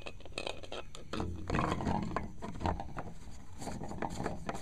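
Scraping and light knocks of PVC pipe sections being handled and fitted together, a run of short plastic clicks and rubs.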